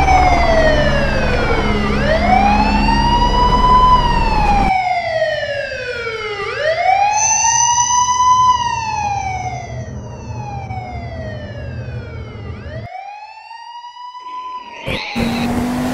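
Police siren wailing, its pitch sliding slowly down and back up about three times before it cuts off near the end.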